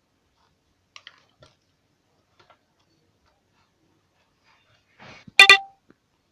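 Butter slime being squeezed and pressed: a few faint sticky ticks, then about five seconds in a short hiss and a brief, loud, horn-like blat of trapped air forced out of the slime.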